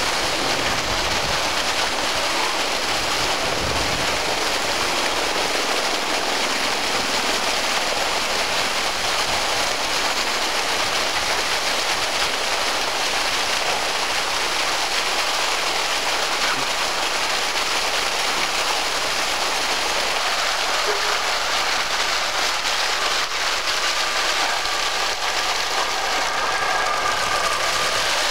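Water gushing from an open fire hydrant and splashing onto the street pavement: a steady rushing hiss.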